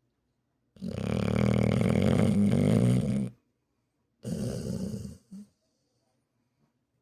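Loud snoring: one long, rasping snore of about two and a half seconds starting about a second in, then a shorter, weaker snore a second later.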